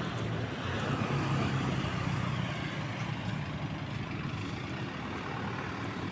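Road traffic going by: a steady mix of engine and road noise from passing vehicles, slightly louder about a second in.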